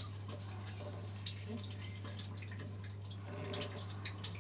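Water trickling and dripping from a newly fitted Jollyfill toilet fill valve, let through a just-opened service valve to flush out whatever is in the supply pipe. Faint, irregular drips.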